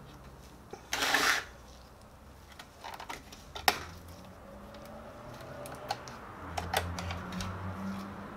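Scattered small clicks and taps from hands handling the metal chassis and circuit board of a disassembled copier touch-panel unit, with a short loud scraping rustle about a second in and one sharp click just before four seconds.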